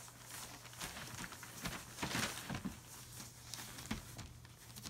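Newspaper bedding rustling and crinkling in irregular scratchy scuffles as a German Shepherd puppy scrambles about on it, over a faint steady low hum.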